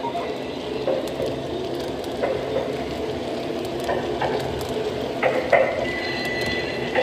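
Lionel O-gauge Union Pacific passenger cars rolling past on model track: a steady rumble of the wheels with irregular clicks and clacks over the rail joints, a few stronger clacks a little after five seconds in, and a thin high squeal near the end.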